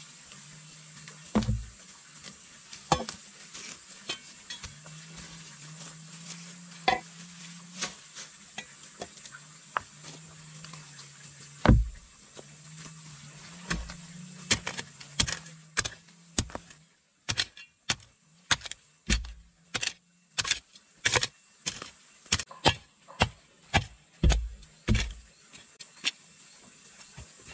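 Food preparation with a knife on a wooden cutting board: scattered knocks and clinks, then, from about halfway, a steady run of chopping strokes at about two a second.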